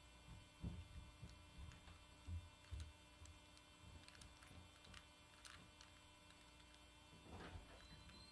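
Faint plastic clicks and clacks of a megaminx puzzle being turned by hand, scattered irregularly, over a steady low electrical hum.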